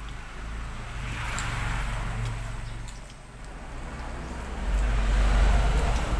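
Road traffic: two vehicles passing one after the other. The first swells and fades over the first three seconds; the second is louder, with a deeper rumble, near the end.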